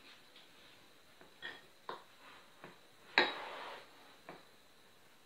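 Light clicks and knocks of kitchen utensils handled at a counter, a spatula against a bowl of pancake batter. One sharper knock comes a little after three seconds in, followed by a brief scrape.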